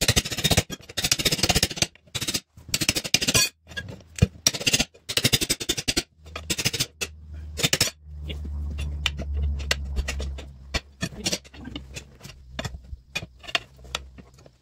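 Metal scraping and clinking as the steel lock ring of a split-rim wheel is worked off by hand. There are several long rasping scrapes in the first six seconds, then scattered taps and clicks over a low hum.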